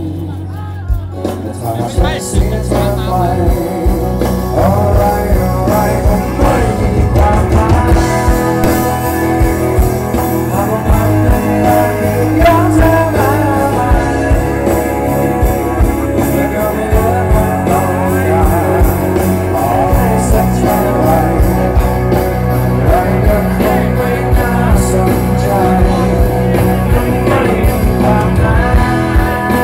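A live band plays a rock song through the stage PA. A singer sings over acoustic guitar, electric guitar and a steady drum beat.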